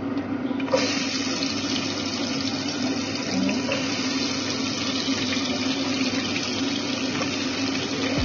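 Chopped garlic, ginger and onions dropped into hot oil in a pot, starting to sizzle suddenly about a second in and frying steadily, over a steady low hum.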